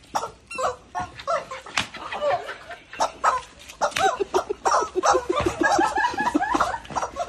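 Women laughing, with repeated sharp slaps of a straw broom hitting the ground and squeals from squeezed screaming rubber chickens.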